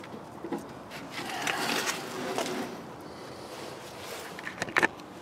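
Scraping and rustling as new wiring is pulled and guided through a steel chassis rail, swelling for a second or two, with a few small clicks and a couple of sharp knocks near the end.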